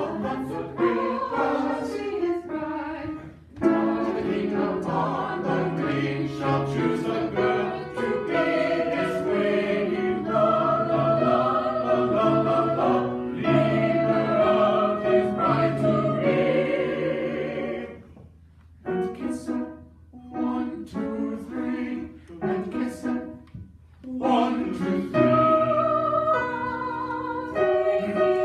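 Mixed choir singing in parts. The singing breaks off briefly about two-thirds of the way through, goes on in short separate phrases, then resumes in full.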